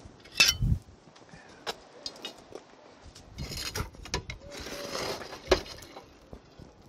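Glowing charcoal and wood embers being shovelled onto the lid of an aluminium cooking pot: scattered clinks and knocks of coals and metal tool on the lid, with scraping in between and one sharper clink about five and a half seconds in. The embers on the lid give heat from above while the do pyaza cooks sealed.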